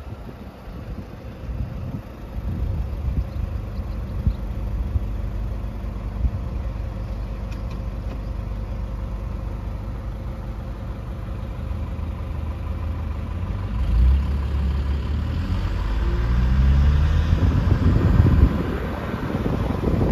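Car on the road: a steady low engine and road rumble, with an engine speeding up about fourteen seconds in, its pitch rising in steps for a few seconds.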